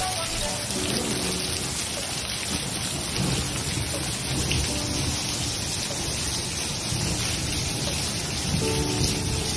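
Steady rain falling on a grass lawn and concrete patio, an even, continuous hiss of drops.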